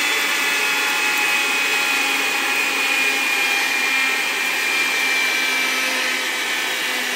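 Red handheld vacuum cleaner running with a steady, high motor whine, its nozzle held against a rabbit's coat to pick up shed fur in place of brushing.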